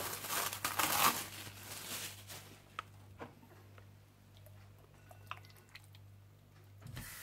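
Kitchen handling noises as marinated chicken goes into a cooking pot: about two and a half seconds of rustling and crinkling, then a few light, separate clicks and taps, over a steady low hum.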